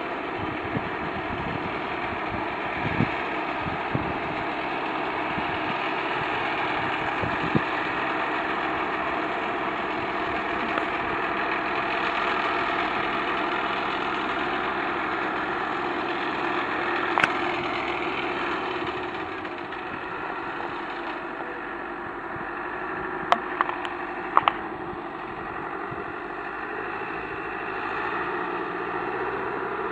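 SAME Explorer 65 tractor engine running steadily as it mows with a sickle bar mower. A few sharp clicks stand out about three-quarters of the way through.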